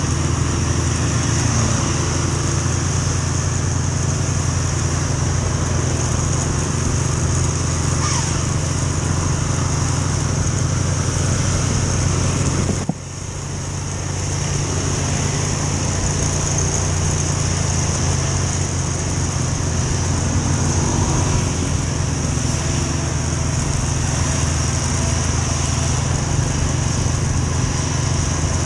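Small motorcycle engine running steadily under way, with road and wind noise. The level drops suddenly about 13 seconds in and builds back over a couple of seconds.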